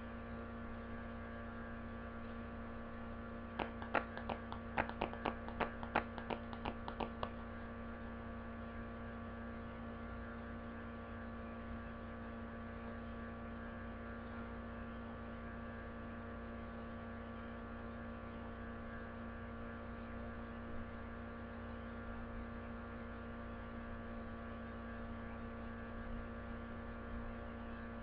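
Steady electrical mains hum with a stack of constant tones, picked up by the recording setup. About three and a half seconds in comes a quick run of about a dozen sharp clicks lasting some four seconds.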